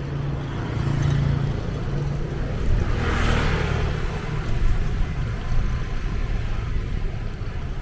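A car passes close by, its tyre and engine noise swelling and fading about three seconds in, over a steady low rumble of traffic.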